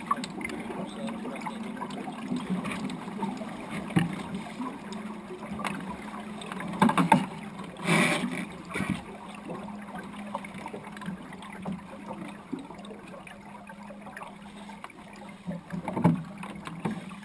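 Steady noise of a small wooden sailing dinghy under way, water along the hull, broken by several short knocks and clatters of gear in the boat, the loudest around seven to eight seconds in and again near the end.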